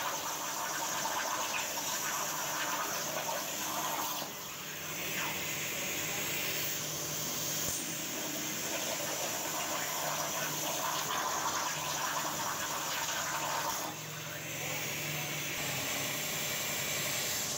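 CNC plasma torch cutting steel plate: a steady hiss of the arc and its gas jet. It drops off briefly twice, about four and fourteen seconds in, as the torch moves between cuts.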